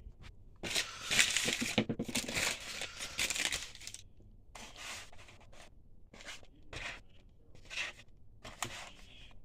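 Paper takeout packaging being handled and opened, rustling, crinkling and tearing in a dense run of bursts for the first few seconds, then in shorter separate bursts.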